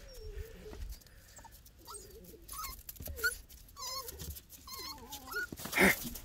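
Miniature Pinscher puppies whining: a run of short, high whimpers that bend up and down in pitch. A brief louder burst comes near the end.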